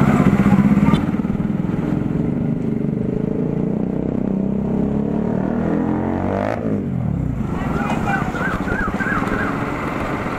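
Bajaj Pulsar RS 200 motorcycle engine and exhaust running under way. It is loudest in the first second, then settles to a steadier, lower pitch as the throttle eases. Another vehicle passes about six and a half seconds in, and a warbling tone sounds briefly around eight to nine seconds.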